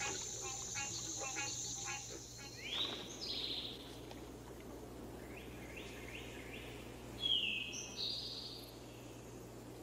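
A chorus of insects, a steady high trill over a rhythmic pulsing call, changes about three seconds in to wild birds calling. First comes a rising whistled note, then a short run of notes, then a louder falling call about seven seconds in.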